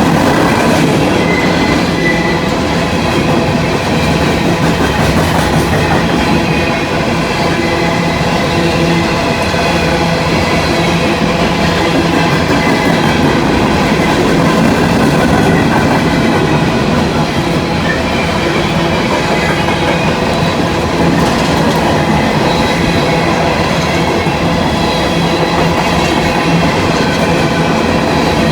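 Freight cars of a long coal train rolling past: a steady rumble and clatter of steel wheels on rail, with faint wheel squeal.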